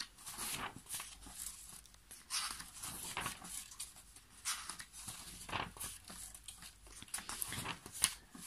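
Paper being handled: a run of short, irregular rustles and small clicks as a stack of photocopies and receipts is turned and shuffled.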